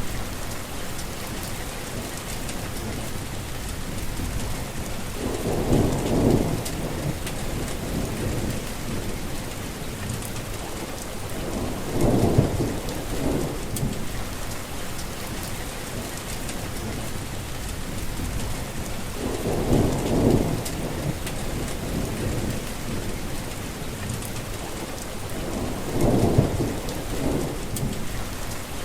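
Heavy rain falling steadily, with four low rumbles that swell and fade, roughly six to eight seconds apart.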